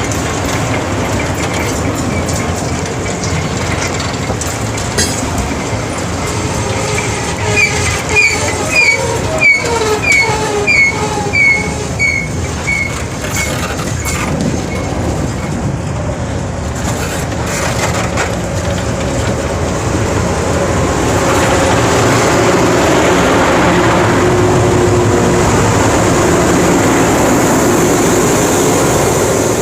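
Loram rail grinder train passing on the rails with a steady rumble. About a quarter of the way in comes a run of about a dozen short ringing tones, roughly two a second. The rumble grows louder in the last third.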